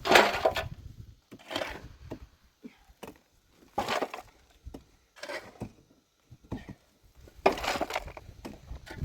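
Wood cracking and splintering in five separate strikes, about one every one and a half to two seconds, with the first and last the loudest and small cracks between them.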